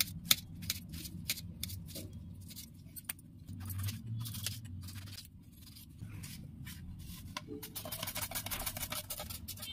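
Kitchen knife slicing a tomato on a granite countertop, the blade tapping the stone in a run of sharp clicks. Near the end, a carrot is rubbed quickly across a plastic grater's metal blade in a fast run of scraping strokes. A low steady hum lies underneath.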